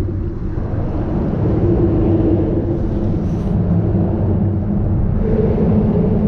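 An engine running steadily with a low drone; its pitch steps up slightly about five seconds in.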